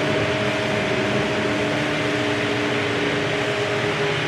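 Cementing pump truck's deck engines running at idle with the pumps out of gear: a steady mechanical drone with a few steady whining tones on top, two of which drop out about three to four seconds in.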